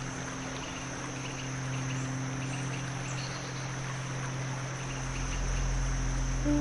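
Forest ambience of crickets chirping in short repeated trills over a steady flowing stream, with a low steady drone underneath.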